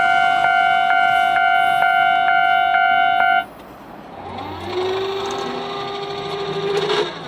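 Japanese level crossing alarm ringing with about two strikes a second, then stopping abruptly about halfway through. A quieter whine follows that rises in pitch and then holds steady until it cuts off near the end.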